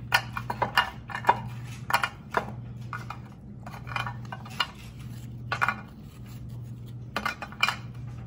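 Irregular light clicks and taps of crisp Chessmen butter cookies being set down and pushed into place in a ceramic baking dish, some in quick little clusters. A steady low hum runs underneath.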